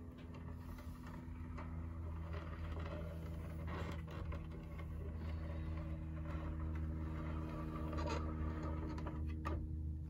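A steady low mechanical hum with several held tones, with faint scrapes and light taps over it as the wooden board holding the bag is turned. It cuts off abruptly at the end.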